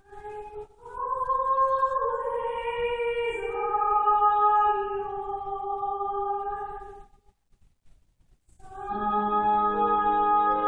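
A woman singing long held notes in a classical style with piano accompaniment; the music breaks off for about a second and a half a little past the middle, then resumes on a sustained chord.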